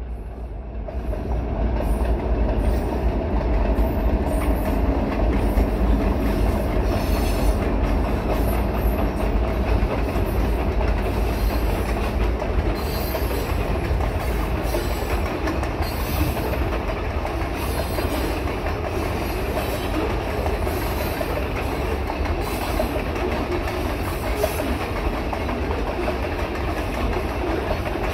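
Freight train of covered grain hopper cars rolling past, building up over the first couple of seconds into a steady rumble with repeated clacks of the wheels on the rails.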